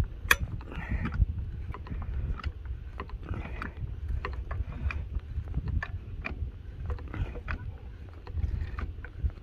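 Car jack being worked inside a crushed corrugated steel culvert, a run of irregular clicks and ticks as it forces the dented metal back open.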